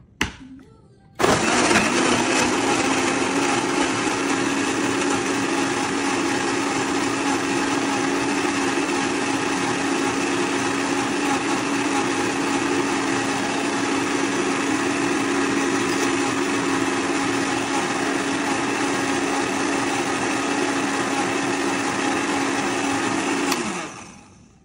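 Hamilton Beach 58175 800-watt blender with a glass jar blending a green smoothie: a short click, then about a second later the motor starts and runs steadily with a strong even hum. Near the end it is switched off and the hum drops in pitch as the motor winds down.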